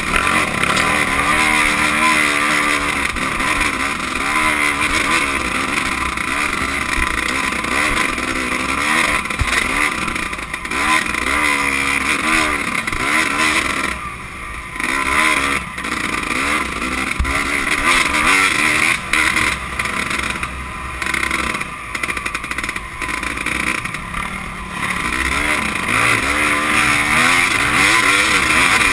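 Dirt bike engine under hard riding, close up, revving up and down over and over in rising and falling pitch as the rider works the throttle and gears, over a steady hiss. It briefly drops off twice, about halfway through and again a few seconds later.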